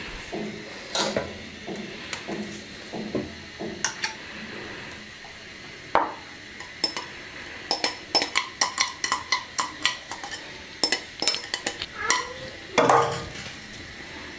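A metal utensil clinking against a steel bowl as the pudding mixture is stirred: scattered taps at first, then a quick run of clinks about four or five a second, and a louder clunk near the end.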